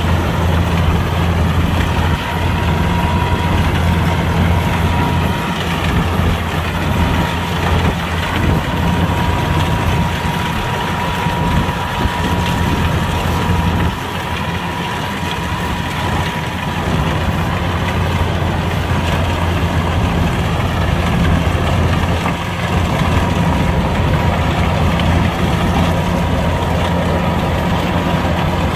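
Kubota combine harvester's diesel engine running steadily, a low drone with a thin whine above it. The sound dips briefly about halfway through and then comes back up.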